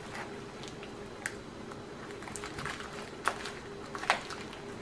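A plastic-wrapped package being handled on a table: a few light clicks and soft crinkles over a faint steady hum.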